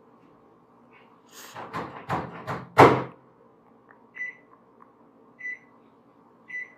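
Brush strokes sweeping over a microphone: several scratchy swishes in quick succession starting a little over a second in, the last the loudest, then three short faint ticks about a second apart.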